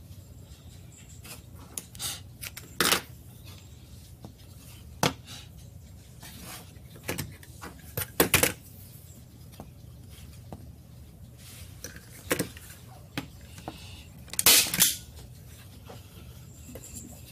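Hand-held staple gun snapping shut several times: sharp metallic clacks a few seconds apart, the loudest near the end.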